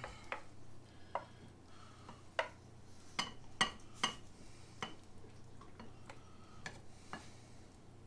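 Wooden spatula scraping and knocking against a skillet as stir-fried chicken and vegetables are pushed out into a bowl: faint, irregular clicks and taps, a little louder around three to four seconds in.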